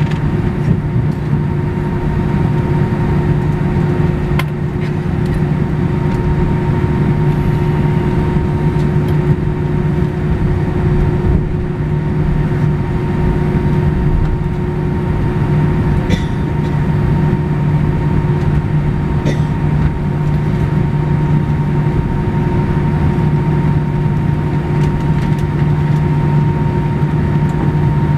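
Airbus A319 cabin noise during taxi, heard from a window seat over the wing: the jet engines at low taxi power make a steady drone with a constant hum and a higher whine.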